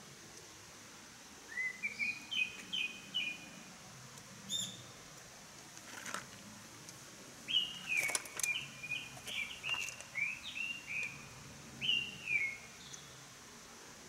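A small songbird singing: a short phrase of quick repeated notes about a second and a half in, then a longer run of quick notes from about the middle to near the end, with a single high call in between.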